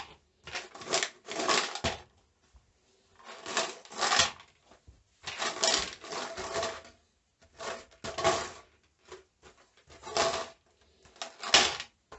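Small metal bolts rattling inside a plastic bottle-bottom container as it is shaken by hand, in about seven separate bursts with short pauses between.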